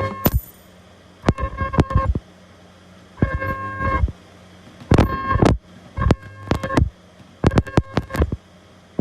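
Handheld ultrasonic plastic welder firing a series of short spot welds: about seven buzzing bursts, each under a second, opened and closed by a click. A steady low hum runs between them.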